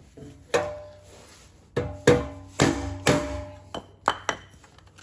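Mallet striking a block of wood held against a BMW M2 exhaust tip, about eight blows at uneven intervals. Each blow leaves a short ringing tone from the steel exhaust as the tip is driven off its pressure clips.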